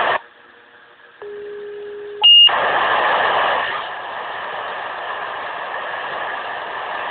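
Fire pager being toned out: a burst of radio static cuts off at the start, then a steady low tone for about a second, then a short, loud high beep as the pager opens to a steady hiss of radio static.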